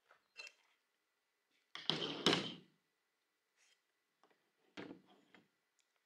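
A loud bang with a short rattle about two seconds in, then a lighter knock about five seconds in, with small clicks between.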